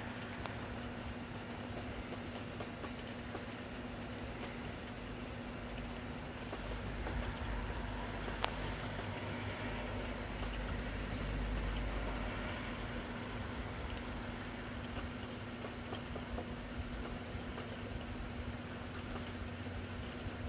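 Steady pattering of rain, with a low rumble of distant thunder that swells about six seconds in and fades by about twelve seconds in. A single sharp click comes about eight seconds in.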